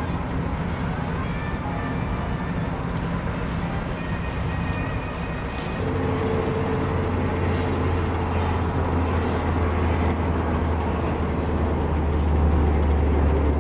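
Steady mechanical engine drone. About six seconds in it changes abruptly to a louder, deeper hum.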